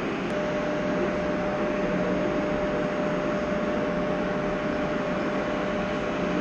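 Steady mechanical rumble with a thin, steady high tone that starts just after the beginning and holds throughout.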